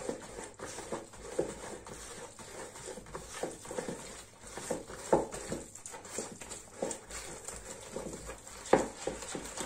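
A hand squishing and mixing sticky, wet yeast dough in a plastic bowl as flour is worked into the liquid: irregular soft squelches and slaps, with a louder slap about five seconds in and another near the end.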